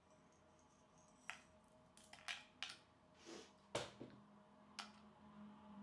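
Scattered sharp clicks and light knocks of whole black peppercorns and garlic cloves dropping into a stainless steel pot, the loudest knock a little under four seconds in.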